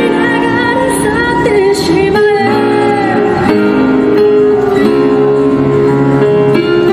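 A woman singing into a handheld microphone over instrumental backing music. Her voice drops out within the first couple of seconds, and the instrumental carries on.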